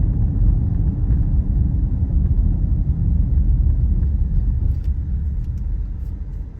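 Low, steady road and engine rumble inside the cabin of a moving car, getting quieter over the last second or so.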